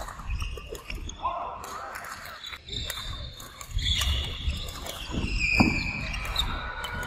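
Badminton rally on a wooden court: sharp racket strikes on the shuttlecock and high, short shoe squeaks, the squeaks clustered from about four seconds in, with a loud hit about halfway through. Voices murmur in the hall behind.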